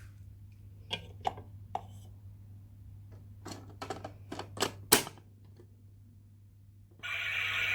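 Clicks and knocks of a dishwasher being handled, a quick run of them with one sharp knock, then a steady rushing noise starts suddenly near the end as the dishwasher begins to run.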